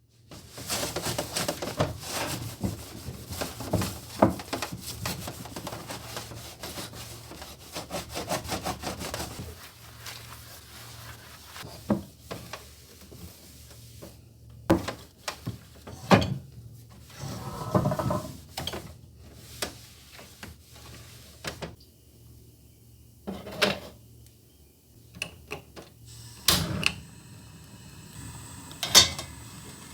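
Close handling noises: about ten seconds of rapid rubbing and scraping, then scattered knocks and clicks as objects are moved and set down.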